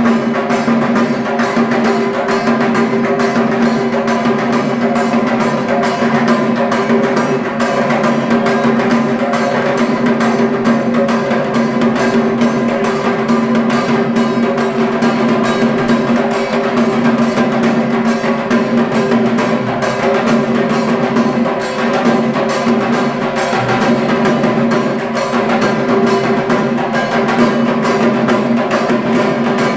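Two large barrel drums beaten with sticks in a fast, continuous rhythm, without a break.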